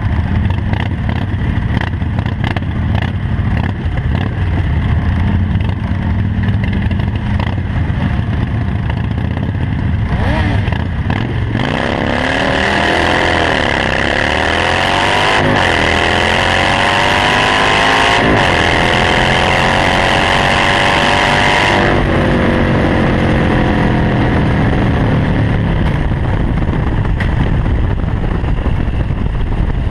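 Harley-Davidson Nightster 1200's V-twin engine through its Vance & Hines exhaust: it rumbles along at low revs, then about eleven seconds in it accelerates hard, the pitch climbing and dropping sharply at each of two gear shifts, with a hiss of wind over it. About two-thirds of the way through it rolls off, the pitch falling back to a low rumble.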